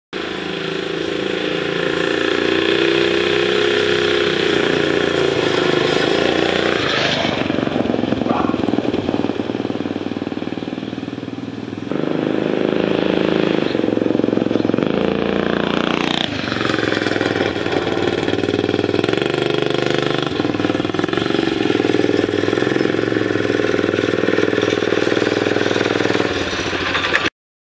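Small single-cylinder Predator 6.5 HP mini bike engine running through its exhaust, its revs sweeping up and down twice.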